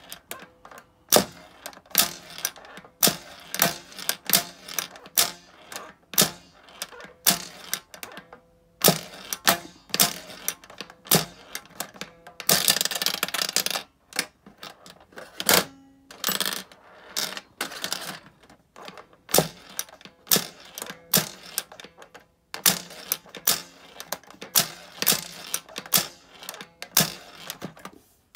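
Small steel balls clicking and clattering through the pins and against the clear plastic cover of a Yonezawa toy pachinko board, fired by its spring launcher. The clicks are irregular, several a second, with a dense rattle lasting about a second and a half near the middle.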